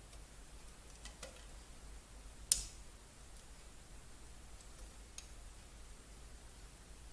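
Light handling clicks from desoldering a ZX81 keyboard connector with a soldering iron and pulling at it: a few faint ticks, and one sharper click about two and a half seconds in, over a low steady hum.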